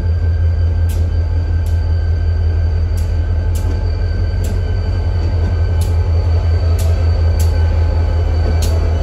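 Reading & Northern diesel locomotive moving slowly along the track, its engine a loud steady low drone. Above it runs a thin steady high whine, and sharp clicks come at irregular intervals.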